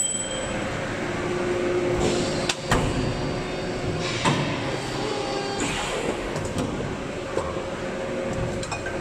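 Steady running noise of a hydraulic forging press and factory machinery, with a few sharp metal knocks around the middle.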